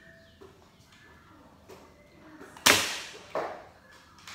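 A Nerf blaster shot: one loud, sharp smack about two-thirds of the way in that dies away over about half a second, followed by a smaller knock about half a second later.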